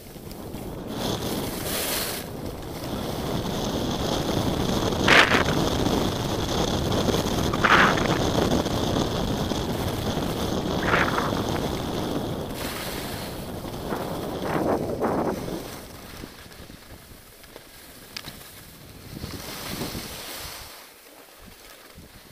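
Skis sliding and scraping over packed snow, with wind rushing over the camera's microphone. There are three sharper bursts of scraping about a quarter, a third and half of the way through, and the noise eases off in the last few seconds.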